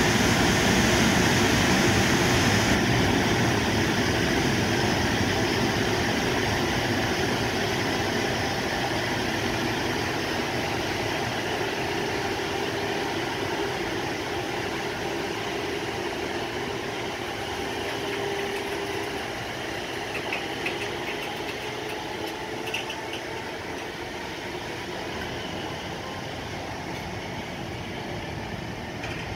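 A container freight train passing close by: the red EF510 'Red Thunder' electric locomotive goes by in the first few seconds, followed by a long string of Koki container wagons rolling steadily over the rails. The sound slowly fades as the wagons keep passing.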